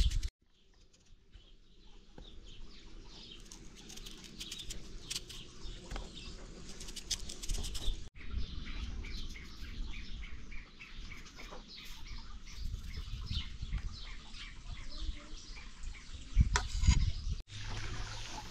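Small birds chirping outdoors over a low background rumble, with a couple of louder thumps near the end.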